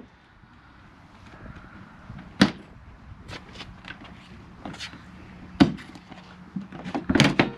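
Sharp clacks of the latches on an AS350 B2 Squirrel helicopter's side baggage compartment door as they are released and the door is opened. There are two loud clacks, about two and a half and five and a half seconds in, with lighter clicks between them and a cluster near the end.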